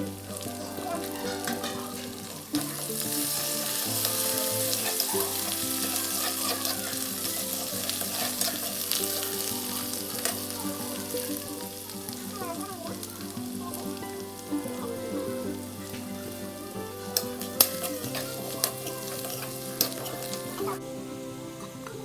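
Food sizzling as it fries in a pan, the sizzle starting a few seconds in and stopping shortly before the end, with a few sharp clicks near the end.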